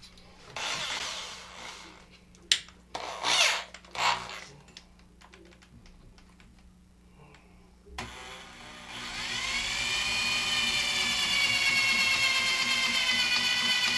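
Ryobi power drill drilling into a bike frame tube to widen a pilot hole for an internal cable: a few short bursts in the first four seconds, then from about eight seconds in the drill speeds up and runs steadily with a high whine.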